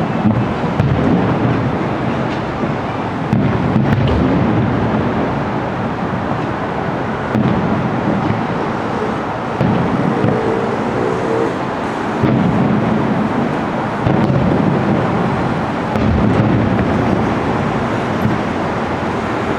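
Aerial fireworks shells bursting in a series of low, rumbling booms every few seconds, each rolling on and echoing into the next.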